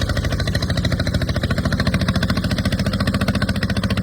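Engine running steadily with a rapid, even chugging of roughly twenty pulses a second.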